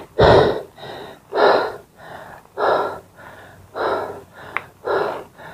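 A cyclist breathing hard from the effort of pedalling, in a steady rhythm: a loud breath about every second and a quarter with a softer one between each.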